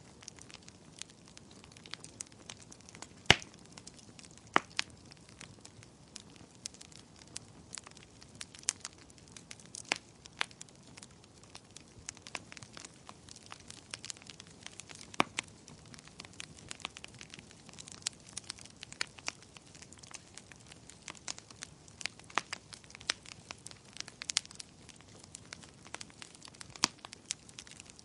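Wood fire crackling in a fireplace: a steady low hiss with irregular sharp pops and snaps, the loudest about three seconds in.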